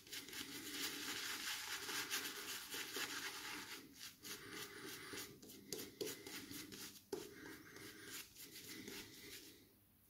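Semogue 820 boar-bristle shaving brush working lather of Moon Soaps Bixby soap over the face: a crackly, wet rubbing, broken by a few short pauses between strokes.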